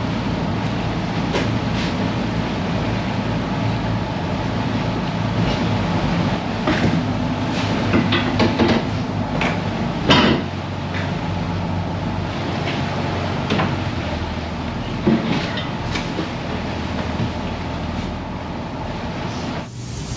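Fishing boat's engine running steadily, with scattered knocks and clatters over it, the loudest about ten seconds in.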